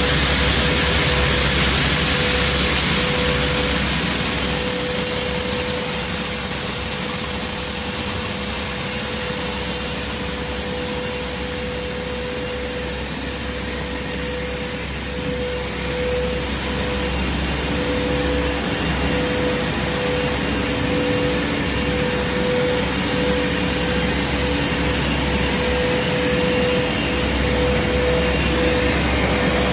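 Steel bar polishing and grinding line running: a steady mix of hiss, low hum and a constant whine, with the whine pulsing on and off in the second half.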